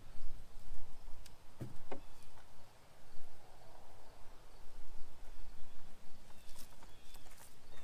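Hands sifting and rummaging through loose potting soil, feeling for red potatoes, with two soft knocks about one and a half to two seconds in. Faint insect chirps in the background.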